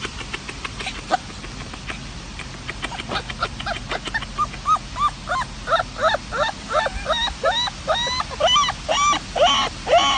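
A dog giving a run of short, high whining yelps, about two a second, coming faster toward the end.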